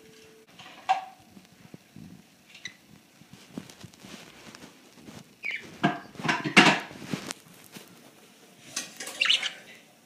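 Metallic clinking and rattling of a stainless steel food bowl against a wire birdcage. There is a sharp click about a second in and a louder burst of clattering about six to seven seconds in, with a few more clinks near the end.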